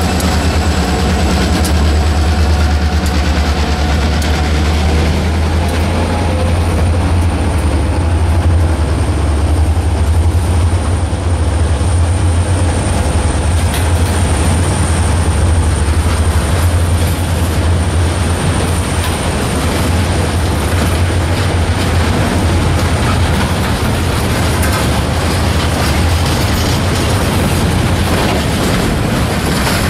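Freight train passing close by. The diesel locomotives' engine sound fades over the first few seconds, and then the freight cars roll past with a steady low rumble. A thin, high wheel squeal comes in about six seconds in.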